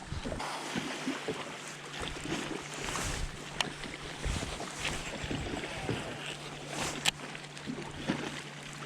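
Bass-boat ambience on the water: wind and water noise over a steady low hum, with two sharp clicks, about three and a half and seven seconds in.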